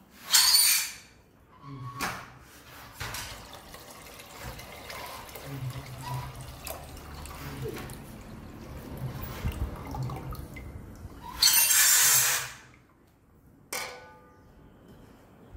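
Thin white liquid poured from a ceramic bowl into an aluminium pot of water, pouring and splashing, with two loud rushing bursts, one just after the start and one about three-quarters through. A short sharp click near the end.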